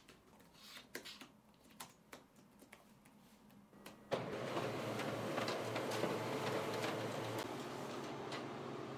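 Scattered clicks of laptop keys being typed. About four seconds in, a much louder steady mechanical noise with a low hum starts abruptly and runs on, with a few clicks over it.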